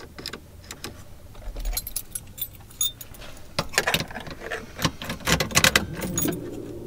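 Irregular plastic clicking and rattling as the dashboard fog-light push-button switch of a 1995 Honda Civic EX is pressed on and off repeatedly, with a cluster of quick clicks in the middle. A faint steady hum comes in near the end.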